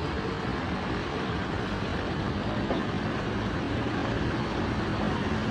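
Steady vehicle engine and road noise.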